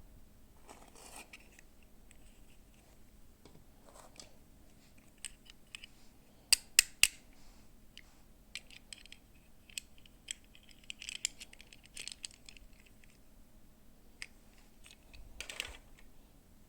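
Small clicks, taps and rustles of plastic toy packaging and miniature pieces being handled, with three sharp clicks close together about six and a half seconds in.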